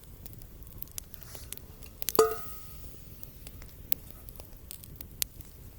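Scattered small clicks and knocks, with one sharp clink about two seconds in that rings briefly, like a hard object striking metal or glass.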